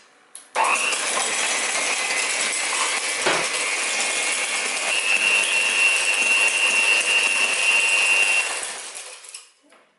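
Breville HeatSoft electric hand mixer running, its twin metal beaters whisking eggs and oil in a glass bowl with a rattle of metal against glass. It starts about half a second in and gives one knock about three seconds in. It runs with a steady high whine, then winds down near the end.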